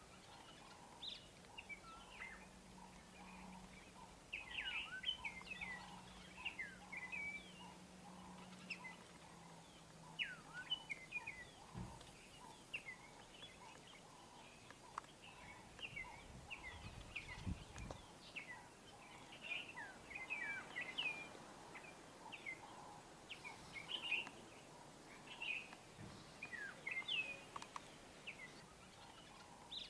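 Small birds chirping, with many short calls that slide up and down in pitch all through. A faint steady low hum runs for the first third, and there are a few low thumps about twelve and seventeen seconds in.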